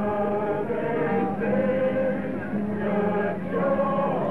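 Group of voices singing a slow hymn in long held notes.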